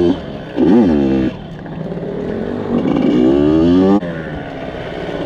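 Yamaha YZ85 dirt bike's two-stroke engine revving up and down under the throttle. There is a short blip about half a second in, then a longer climbing rev that is chopped off sharply near the four-second mark before it drops back.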